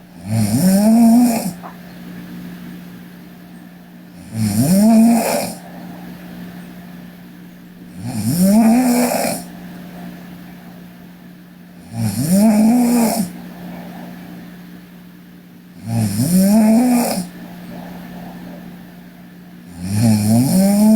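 A sleeping woman snoring regularly: six snores, about one every four seconds, each a rising rasp on the in-breath lasting about a second. A steady low hum runs underneath.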